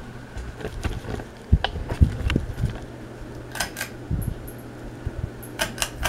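Tatung Hugger ceiling fan's motor humming steadily, with a light buzz. Several sharp clicks and a few low knocks sound over it.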